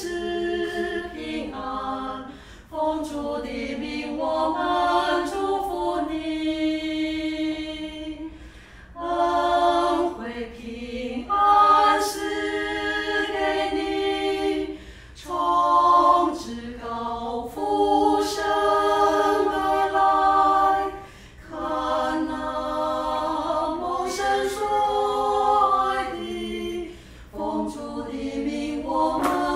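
A small women's vocal ensemble of three singing unaccompanied, in sung phrases separated by short breaks.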